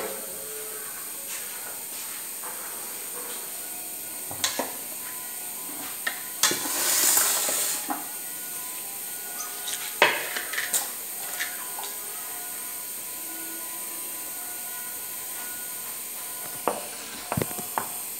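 Kitchen handling sounds: scattered clinks and knocks of steel dishes and a stainless steel bowl on a granite counter, with a brief rustling rush about six to eight seconds in and a quick run of knocks near the end, over a steady hiss.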